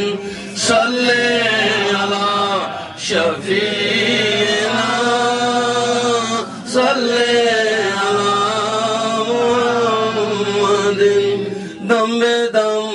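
Male voices chanting a devotional naat and salawat refrain in long, drawn-out melodic lines, with brief breaks between phrases.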